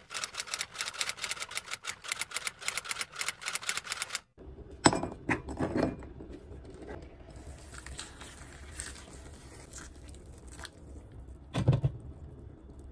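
Typing sound effect of rapid even key clicks for about four seconds. Then a low steady hum with a few light clicks and knocks as dried shiitake mushrooms are handled in a ceramic bowl, and a dull thump near the end.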